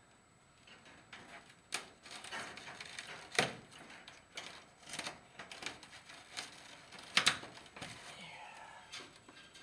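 Chicken-wire mesh being bent and pressed by hand onto foam panels: irregular sharp clicks and rustling scrapes of the wire, with the loudest clicks about three and a half and seven seconds in.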